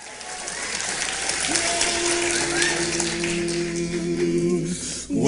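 Audience applauding as a barbershop quartet takes the stage. From about a second and a half in, the quartet holds a steady low chord under the applause, and the clapping dies away near the end.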